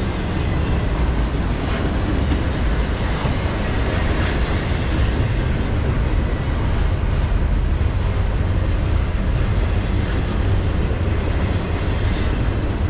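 Intermodal freight train's double-stack container cars and trailer flatcars rolling past as the train slows, a steady low rumble of steel wheels on rail with a few faint clicks.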